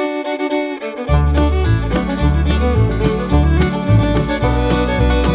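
Instrumental background music: a melody of held notes, joined about a second in by a bass line and a steady beat.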